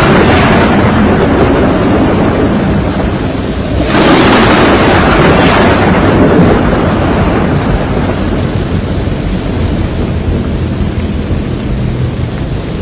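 Thunder: a loud crash about four seconds in that rumbles and slowly fades, over a steady rain-like noise and the dying rumble of an earlier crash.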